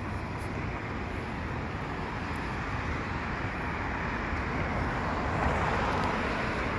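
Steady city street noise, a hiss with a low rumble, growing louder about five seconds in.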